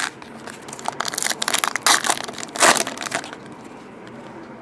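Shiny trading-card pack wrapper crinkling as it is torn open and the cards are pulled out, a run of crackling bursts from about a second in until just past three seconds.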